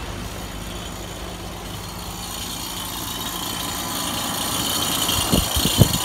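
Air-conditioning equipment running with a low steady hum and a hiss that grows louder; a few sharp knocks near the end.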